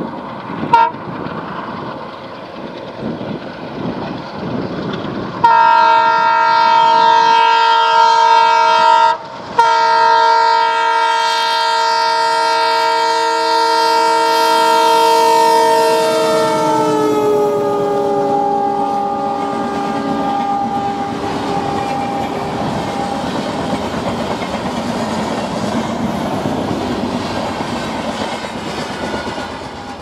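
Horn of a WDM-3D ALCO diesel locomotive: a short toot about a second in, then a long loud blast from about five seconds in, briefly broken near nine seconds, whose pitch drops as the locomotive passes. Then the steady rushing and rail clatter of the fast train's coaches going by.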